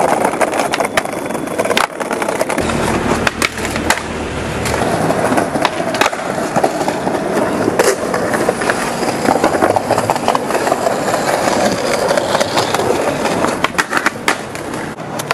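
Skateboard wheels rolling on concrete pavement with a steady rumble, broken by repeated sharp clacks of the board: tail pops, landings and hits on ledges. The clacks come thickest near the end.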